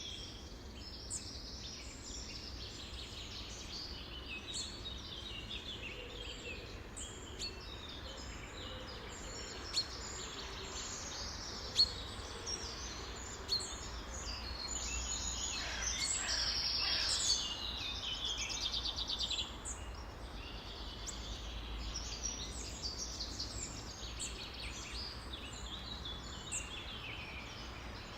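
A chorus of many songbirds singing and calling at once, short chirps and whistles overlapping continuously. Roughly halfway through it grows louder for a few seconds, with a fast trilling run of repeated notes.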